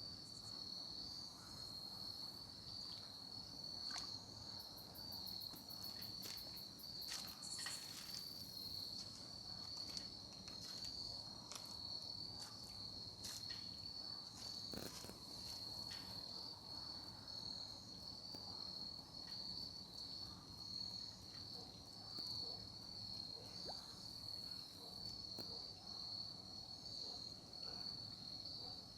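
A steady chorus of crickets: one continuous high trill, with faint scattered clicks and a brief second, higher trill about six seconds in.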